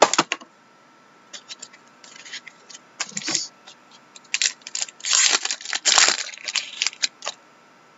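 A trading card pack's foil wrapper being torn open and crinkled by hand. It crackles in irregular bursts: a sharp one right at the start, scattered ones after, and the densest about five to six seconds in.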